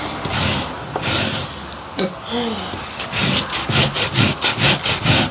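Raw cassava being grated by hand, a steady rasping that settles into quick back-and-forth strokes about three a second.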